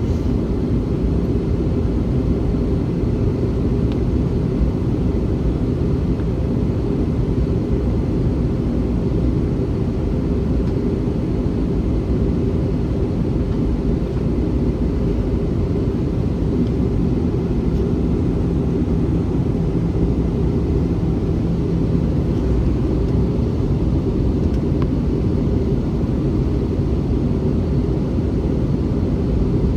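Steady cabin noise of an Airbus A321-211 in flight: a constant low rumble of airflow and its CFM56 engines heard from inside the cabin, without change.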